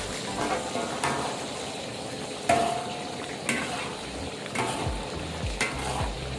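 Food frying and sizzling in a pan while it is stirred, with a spatula scraping and knocking against the pan about once a second.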